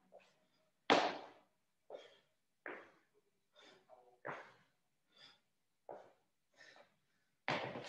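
A person breathing hard during exercise: short, sharp exhalations about once a second.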